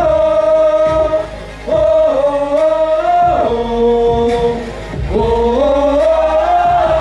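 Men singing a Mandarin pop song into microphones, holding long notes that slide from pitch to pitch, with two brief dips in level, about a second and a half in and near five seconds in.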